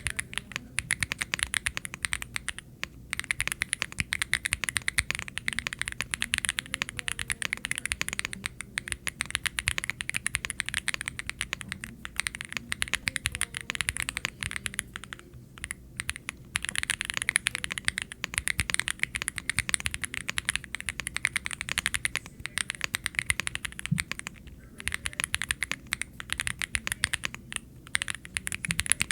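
Typing on a Womier SK65 mechanical keyboard: fast, continuous keystrokes, broken by a few short pauses.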